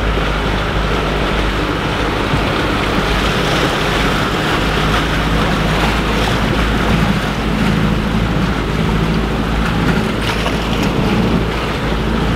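Off-road 4x4 engine running steadily at low revs while the vehicle wades through deep muddy floodwater, water washing and splashing against the front, heard from inside the cabin.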